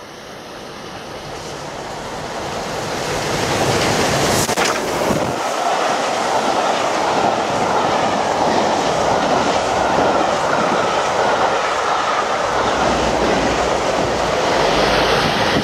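Steam-hauled special train passing close at speed: it grows louder over the first few seconds, then the coaches run through with a steady rush and wheel clatter over the rail joints. A brief sharp sound comes about four seconds in, and a deeper rumble near the end as the diesel locomotive at the rear passes.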